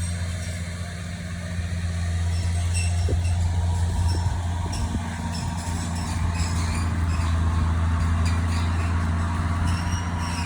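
Engine of a mechanical tree-pruning machine running steadily with a low, even drone, under a harsher noise that swells in the middle and a few short sharp clicks.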